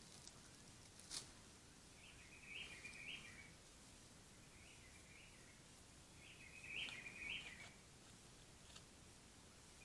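Faint bird calls: three short phrases with little steps in pitch, a couple of seconds apart, over a faint steady hiss. One sharp click about a second in.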